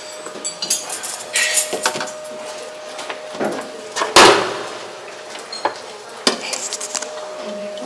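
Dishes and cutlery clinking and clattering in irregular knocks, with one louder clatter about four seconds in, over a faint steady hum.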